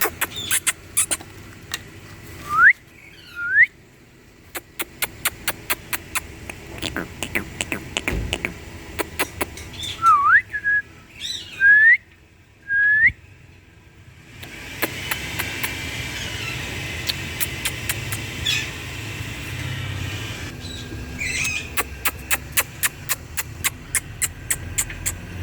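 Indian ringneck parrot giving short upward-sliding whistles, about five of them in the first half, between trains of rapid sharp clicks. A steady rushing noise runs for several seconds in the second half.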